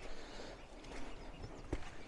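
Footsteps on shoreline rock and stones: a few sharp clacks and scrapes, the loudest about three quarters of the way in, over a low rumble.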